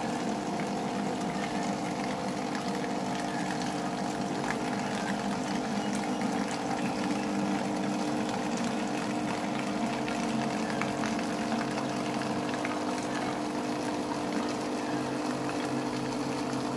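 Two electric water-gallon pumps running together, their small motors humming steadily while water streams from their spouts into plastic bottles.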